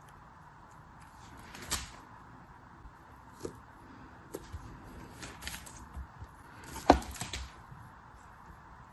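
Packaging handled by hand during unboxing: scattered light clicks, taps and rustles, with a sharper knock just before seven seconds in.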